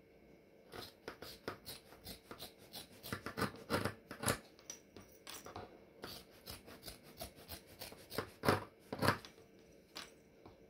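Scissors snipping through fluffy white fur fabric, a run of short cuts at an uneven pace with a few louder snips, the loudest about four seconds in and twice more near the end. A faint steady hum runs underneath.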